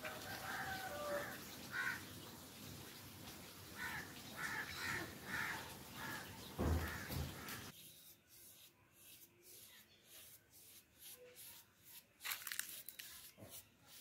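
Mallard ducks quacking several times, with a loud thump a little after halfway. Then a paintbrush rubbing paint onto a flower pot in a run of quick, soft strokes.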